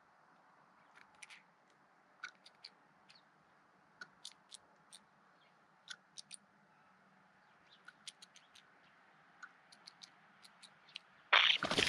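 Eurasian jay making a series of short, dry clicks, irregularly spaced, sometimes two or three close together. Near the end a loud, harsh burst of noise cuts in.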